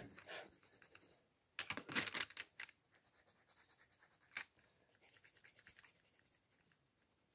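Pencil strokes scratching on sketchbook paper. A quick run of short strokes comes about one and a half seconds in, then a single sharp tick a little after four seconds, then faint short strokes.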